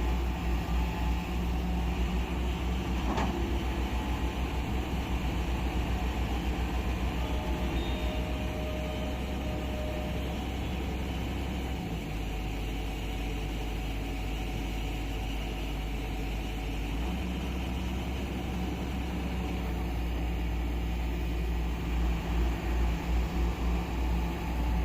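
Heavy diesel construction machine engine running, with a throbbing beat in the first seconds and again near the end and a steadier run in between, plus one sharp click about three seconds in.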